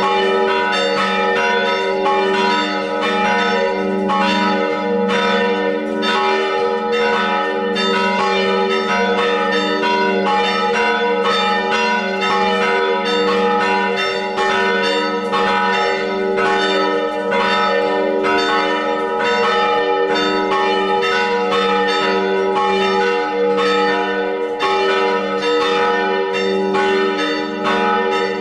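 Church bells pealing, several bells struck in quick succession so that their tones ring on without a break.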